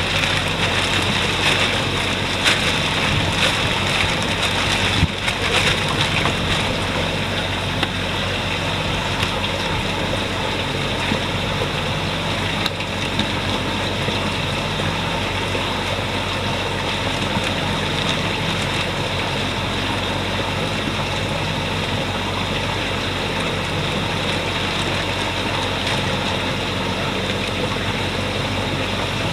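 A plastic fish-transport bag crinkling as it is handled in the first few seconds, over a steady mechanical hum with a rushing, water-like noise.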